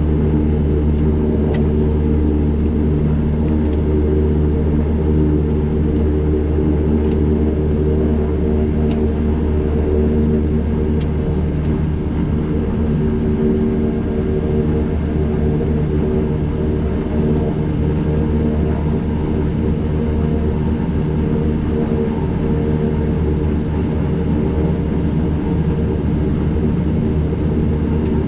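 Twin Pratt & Whitney PT6A turboprop engines of a Beechcraft King Air A100 running steadily, heard from inside the cockpit as a loud, even propeller and engine drone.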